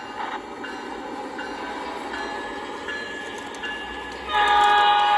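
O gauge model diesel locomotive's onboard sound system playing engine running sounds, then about four seconds in a loud, steady horn blast starts and holds.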